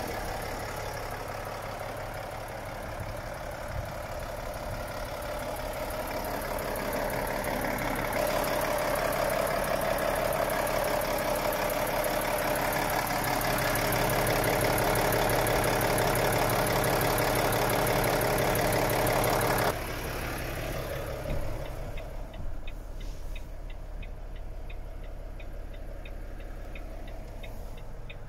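Volvo FH 420 truck's diesel engine idling steadily. It is louder around the front of the truck, then drops suddenly about two-thirds through to a muffled idle heard from inside the cab, with a faint regular ticking.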